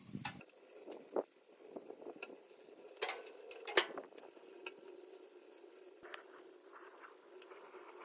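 Faint hiss of an aerosol can of cooking-oil spray misting oil onto the inside of a steel smoker cook chamber to season it, with scattered sharp clicks and taps.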